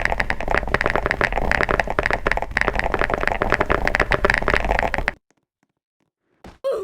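Rapid, continuous typing on a computer keyboard, many key clicks a second, cutting off suddenly about five seconds in. A short, brief sound follows near the end.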